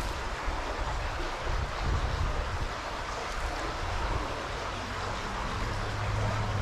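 Steady rush of a small stream's running water, with a low traffic rumble from the road overpass above; a steadier low hum comes in near the end.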